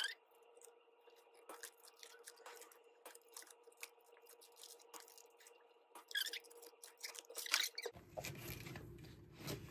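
Plastic and paper crinkling and rustling with scattered light taps as merchandise and packaging are handled, with two louder crinkles about six and seven and a half seconds in.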